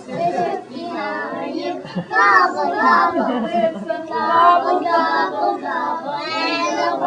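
A group of kindergarten children singing a song together, many small voices at once.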